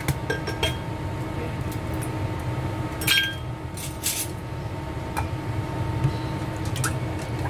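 Scattered clinks and taps against a stainless steel mixing bowl holding cracked raw eggs, one about three seconds in ringing briefly, over a steady background hum. Near the end, wooden chopsticks start tapping in the bowl as the eggs begin to be beaten.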